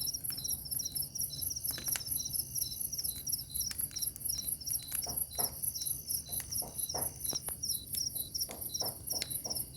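Crickets chirping in steady, rapid, high-pitched pulses, with a few short crackles and pops from the burning bonfire.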